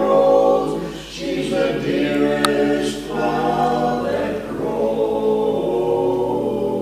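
Barbershop quartet of four men singing a cappella in close harmony: sustained chords, with short breaks between phrases about a second in and again near three seconds.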